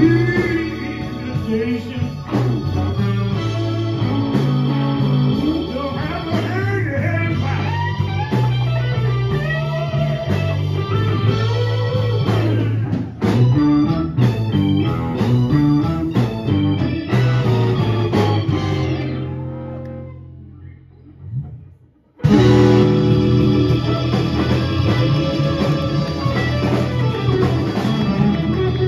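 Live blues band playing: electric guitar over bass, keyboard and drums. The music fades out about two-thirds of the way through. After a short near-silent gap, a guitar-led passage starts abruptly.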